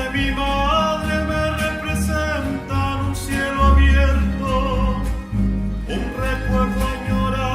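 A song: a voice singing a melody over plucked guitar and a bass line.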